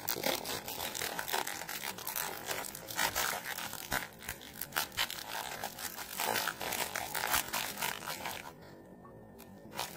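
Crinkly food wrapper rustling and crackling as it is pulled open by hand, in quick irregular crackles, with a short pause near the end.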